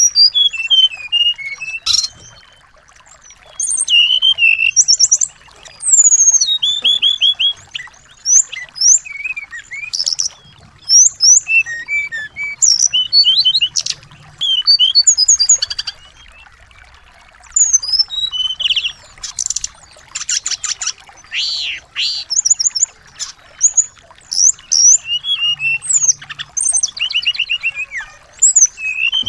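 Small songbirds singing in quick, high chirps and twittering whistled phrases, in bursts with short pauses.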